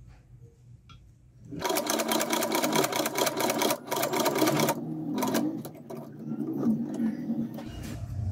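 Long-arm leather sewing machine stitching a bag's handle strap. After a quiet start, a fast run of even needle strokes lasts about three seconds. A short break follows, then slower, softer stitching. This is repeated back-and-forth stitching to reinforce the reattached handle.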